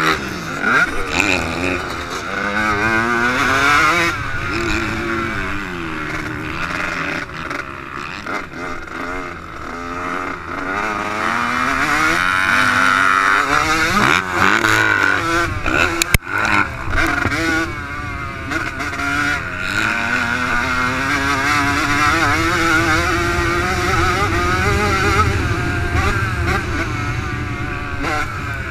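Yamaha YZ85 two-stroke motocross engine ridden hard, its pitch rising and falling again and again as the rider works the throttle and gears, with other dirt bikes running close by. One sharp knock about sixteen seconds in.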